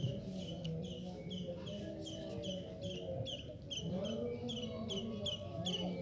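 Rapid, evenly repeated high chirps, about three a second, from a small chirping creature outdoors.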